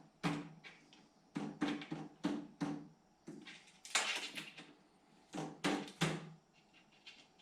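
A run of a dozen or so short knocks and clacks, irregularly spaced and fading out near the end: hard parts being handled and knocked as a table saw's fence is reset to a new cut width.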